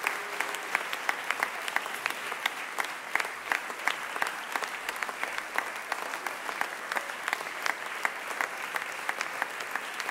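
Audience applauding: dense, steady hand clapping with individual sharp claps standing out.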